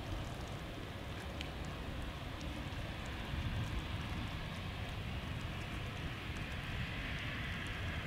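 Embraer 195 airliner's CF34 turbofan engines heard at a distance: a steady low rumble and hiss that grows a little louder about three seconds in.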